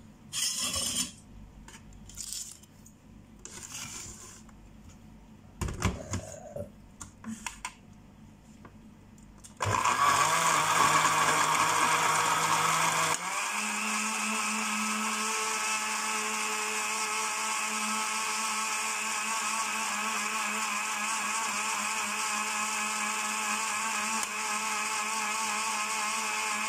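A few knocks and clicks from the blender jar and lid being handled, then a countertop electric blender starts abruptly about a third of the way in, blending saluyot (jute mallow) leaves, banana and milk. A few seconds after starting, its hum steps up in pitch and it runs a little quieter and steadily on.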